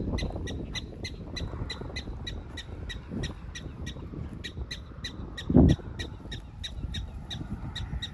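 A black-tailed prairie dog giving a rapid, steady series of short, high alarm chirps, about four a second, at the beagle nosing around its burrows. A single low thump comes a little past halfway.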